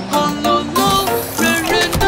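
Children's song: upbeat backing music with a voice singing the melody.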